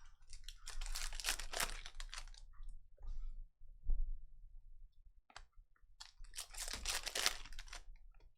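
Trading card pack wrappers and cards being handled: two crinkling, rustling stretches of about a second and a half each, with a few small clicks between them.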